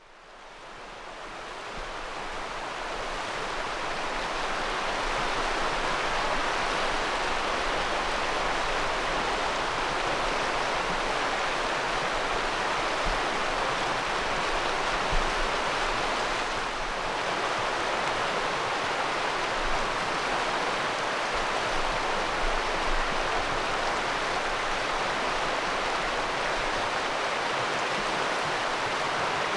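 Shallow river water flowing and rippling in a steady rush, fading in over the first few seconds.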